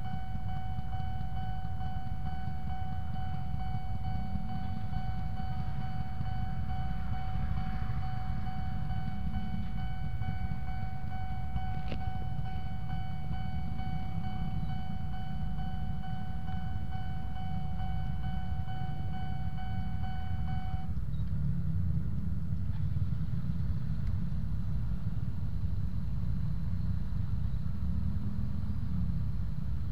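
Railway level-crossing warning signal sounding one steady, unbroken tone that cuts off suddenly about 21 seconds in, over a constant low rumble of idling motorcycle engines and traffic.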